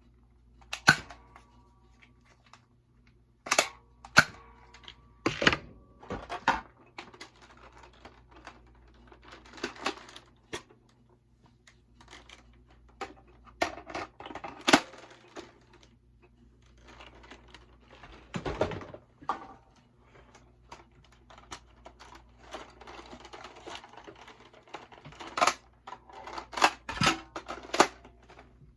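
Nerf toy blasters being reloaded by hand: irregular sharp plastic clicks and clacks, with softer rustling and handling between them.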